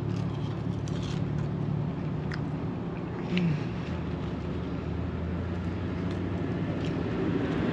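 A vehicle engine running with a steady low hum, with a few faint clicks.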